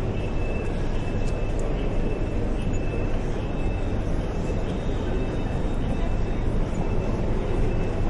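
Railway station concourse ambience: a steady hubbub of indistinct voices over a low rumble, with a faint high tone that comes and goes.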